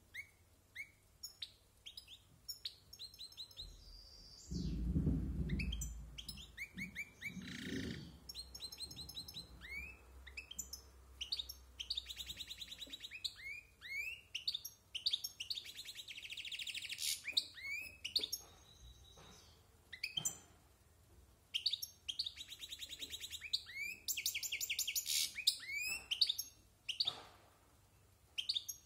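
European goldfinch, about a year old, singing a varied song: quick twittering chirps, downslurred notes and several fast buzzy trills, with short pauses between phrases. A brief low rumble sounds underneath about five seconds in.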